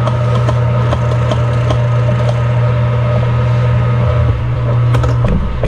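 Metal lathe running steadily with a drill bit in the tailstock boring into the spinning workpiece, a strong low hum with faint ticks from the chips. Near the end the steady hum breaks up briefly.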